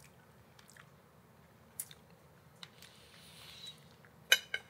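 A person chewing food with faint mouth clicks, then a few sharper clicks near the end.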